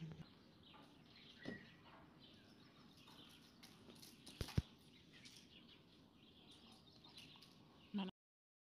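Quiet handling sounds from fingers working through hair to pick nits: faint rustles and scattered small clicks over a low background, with a brief chirp-like tone about a second and a half in and two sharp clicks about four and a half seconds in. The sound cuts off about eight seconds in.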